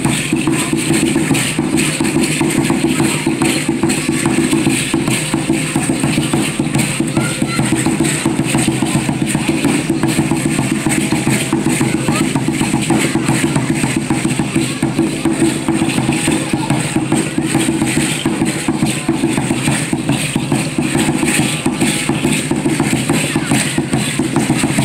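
Steady, fast drumming, the accompaniment for an Aztec-style (Mexica) dance.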